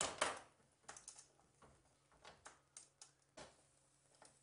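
Cast-iron stovetop sandwich toaster being handled on a gas hob grate: a clatter at the start, then a string of light metal clicks and knocks, with a sharper knock near the end.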